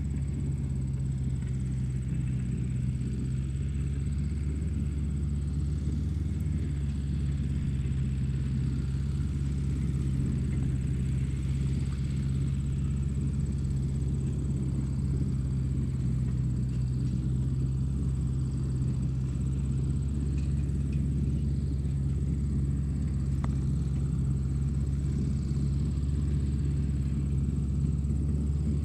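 Steady low motor rumble with a faint thin high whine, unchanging in pitch and level.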